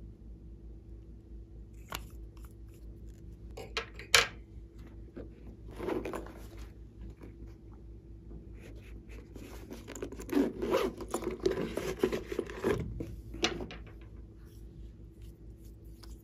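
Hands handling plastic toys and tubes: a few sharp clicks and taps, the loudest about four seconds in, then about three seconds of dense rasping and scraping.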